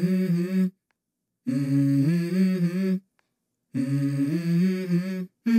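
A voice humming a short tune in three phrases, each stepping from a low note up to a higher one, with abrupt silences between them. It is the vocal opening of a hip hop song.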